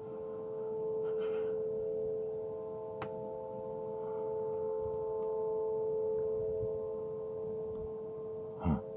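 The unexplained droning sound from the sky known as "sky trumpets": a steady chord of several held tones, swelling and easing slightly, and seeming to come from everywhere. A single click sounds about three seconds in.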